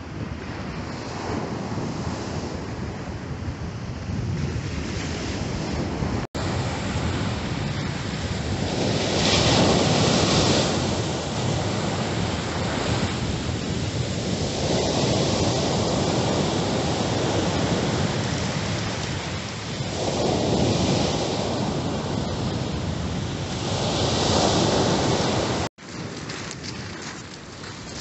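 Sea waves breaking and surf washing up a sandy beach, swelling and ebbing in several long surges, with wind buffeting the microphone.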